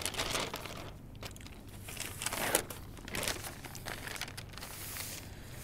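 Newspaper pages being turned and leafed through: a series of papery rustles and crinkles, the loudest about two and a half seconds in.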